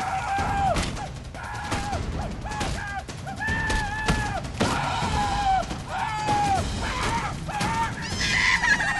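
Music with a repeating melody, over a rapid, irregular series of sharp bangs.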